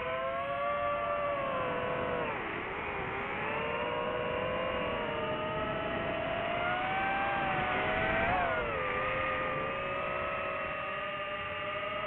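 Quadcopter drone's motors and propellers whining in several tones at once. The pitch dips about two and a half seconds in, then climbs and drops sharply about eight seconds in, following the throttle.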